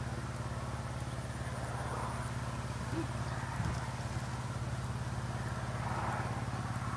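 A small engine running steadily at a constant speed, a low even hum.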